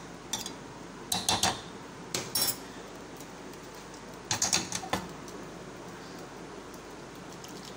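A steel cooking pot and utensils clinking and knocking against the counter and bowls while noodles are dished out, in four short bursts of clatter.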